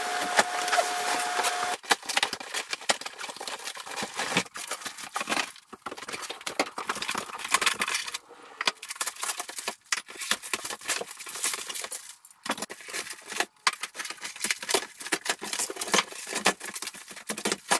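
Irregular clinks, clatters and rustles of steel cab brackets and plastic-bagged bolts being pulled from cardboard packaging and laid out on a wooden workbench. The first two seconds are a steady hiss before the clinking begins.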